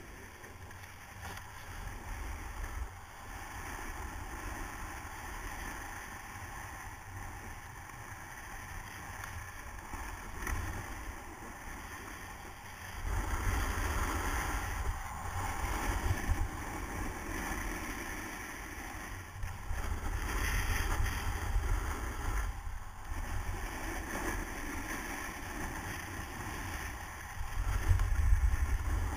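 Wind buffeting a GoPro Hero's microphone during a downhill run on a groomed ski slope, with the hiss and scrape of edges sliding over packed snow. The rush gets louder about halfway through and is loudest near the end.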